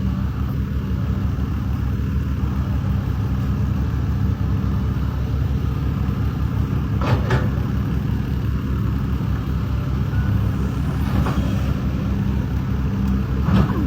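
Excavator's diesel engine running steadily with a low rumble, broken by a few short hissing sounds.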